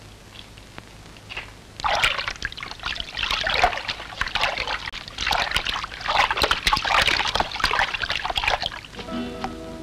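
Water splashing and sloshing in irregular surges, starting about two seconds in, with background music coming in near the end.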